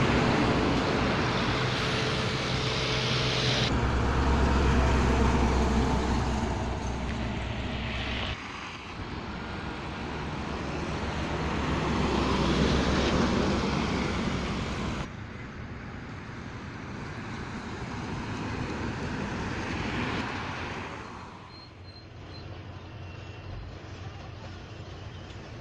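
Heavy diesel trucks, Hino ten-wheelers towing trailers, drive past close by. The engine rumble and tyre noise swell and fade with each pass over several passes, with abrupt changes in between. The last few seconds hold a quieter, steady distant rumble.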